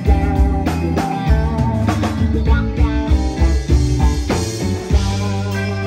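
Rock band playing live: electric guitars and keyboard over drums.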